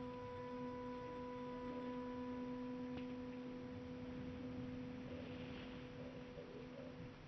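A steady sustained low tone with overtones, like a singing bowl or a drone in background music, fading away near the end.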